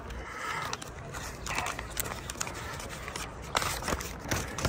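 Quiet street background with a few short rustles and clicks, the clearest about three and a half seconds and four and a half seconds in.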